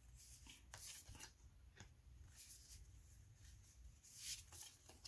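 Faint, soft swishes of oracle cards being slid and laid down on a cloth reading mat, a few brief strokes with the clearest about four seconds in.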